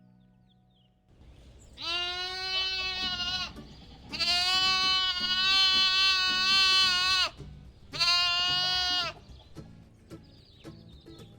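A lamb bleating three times in long, steady, high calls, the middle one the longest, over light background music.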